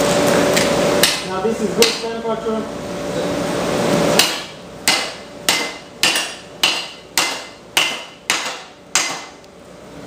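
Blacksmith's hand hammer and striker's sledge hitting hot steel on an anvil. After a steady hiss broken by a couple of light taps, about eight heavy blows land in an even rhythm, roughly two a second, each ringing briefly.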